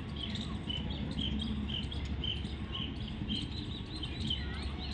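A bird chirping over and over, a short high call about every half second, with a few swooping calls near the end, over a steady low rumble.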